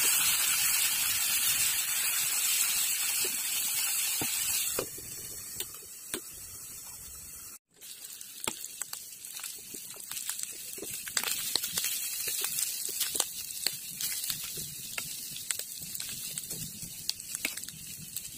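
Fish roe adobo sizzling and crackling as it fries in a frying pan. A steady hiss drops about five seconds in, and after a short break the frying goes on as many sharp pops and crackles as the sauce cooks down.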